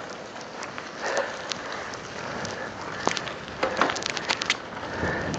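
Mountain bike rolling along a wet, slushy street: a steady hiss and crackle of tyres on wet road, with a cluster of sharp clicks and rattles about three to four and a half seconds in.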